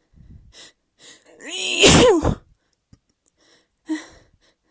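A person sneezing: a few faint breaths, then a short voiced 'ah' build-up that breaks into one loud sneeze about two seconds in, and a short breath near the end.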